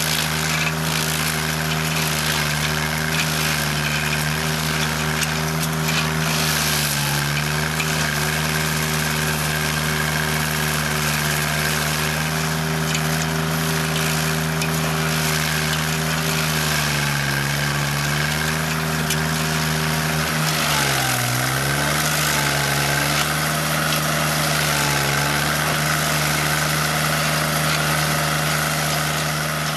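Engine of a D52SPH stump grinder running steadily under a noisy grinding hiss. The engine's pitch sags briefly a few times as the load comes on and then recovers.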